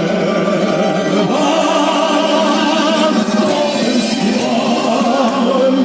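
Music with voices singing, several at once, steady throughout.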